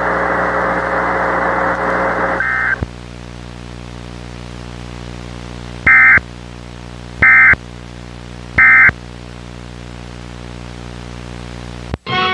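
Emergency Alert System End-of-Message signal: three short, loud warbling data bursts of two-tone audio, about 1.3 seconds apart, over a low steady hum. Before them a loud hiss runs for the first couple of seconds, then cuts off.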